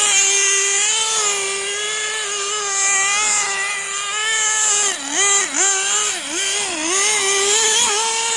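HPI Pulse RC buggy's small two-stroke nitro engine running at high revs with a steady high-pitched whine. About halfway through, the revs drop and pick back up several times in quick succession as the throttle is lifted and reopened while the buggy drifts on snow-covered ice.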